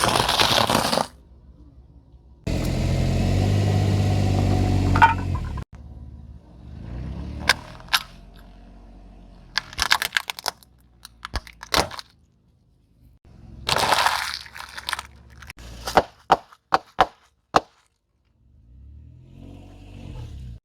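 Car tyres rolling over and crushing crunchy objects: bursts of crackling and a string of sharp cracks and snaps, with a loud low steady sound for about three seconds near the start.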